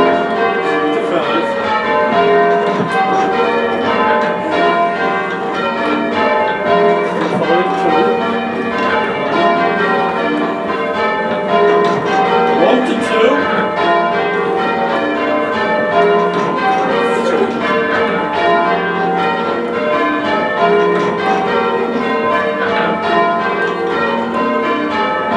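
A ring of six heavy church bells rung full circle in change ringing. The bells strike one after another in a continuous, even pattern, each stroke ringing on into the next.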